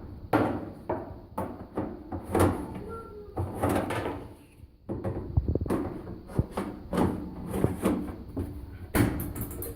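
Repeated knocks, clicks and clatter of sheet-metal dryer parts being handled and fitted back together while the dryer is reassembled.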